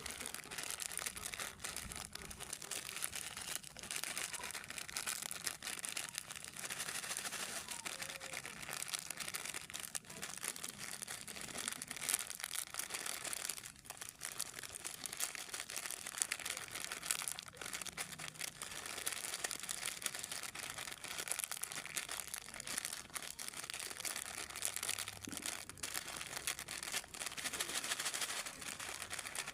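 Plastic snack wrappers crinkling as they are handled: a continuous rustle with many small crackles.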